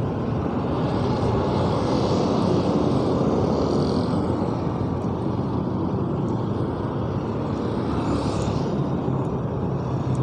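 Road traffic passing close by: a steady rumble of motorcycles and cars, swelling as vehicles go past a couple of times.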